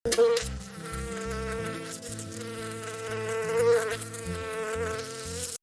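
A flying insect's wings buzzing: a steady, high hum with many overtones that wavers slightly in pitch and swells for a moment near the end, starting and stopping abruptly.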